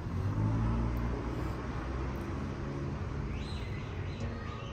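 A low rumble, loudest in the first second. Near the end comes a short noisy hiss of noodles being slurped up from a fork.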